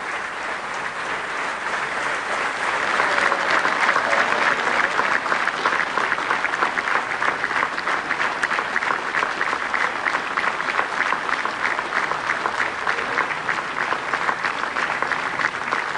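Theatre audience applauding at the end of a performance, swelling over the first few seconds and then falling into steady rhythmic clapping.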